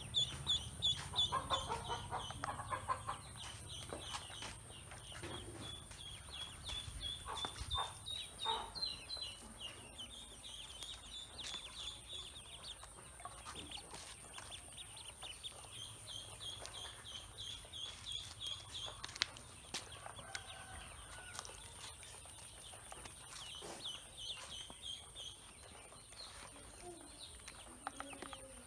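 Ducklings peeping: long runs of short, high calls, several a second, with small splashes in the water.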